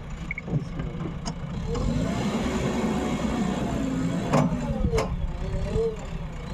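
Diesel engine of a JCB backhoe loader running steadily, with two sharp knocks about half a second apart past the middle.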